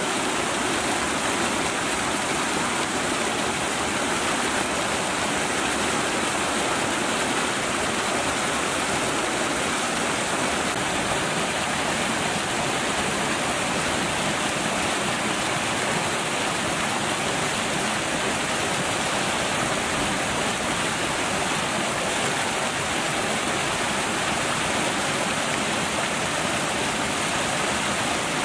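Water pouring over a small waterfall ledge into churning white water below: a steady rushing that does not change.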